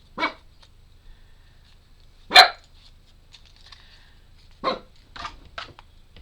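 A dog barking: three loud short barks spaced about two seconds apart, followed by a few quieter ones near the end.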